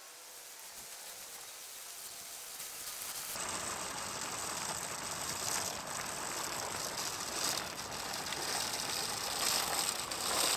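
ECHO RB-100W walk-behind salt spreader pushed over asphalt, getting steadily louder as it comes closer: a rattling grind from its toothed agitator churning the rock salt in the hopper, the sound of a spreader that is hard to push when full.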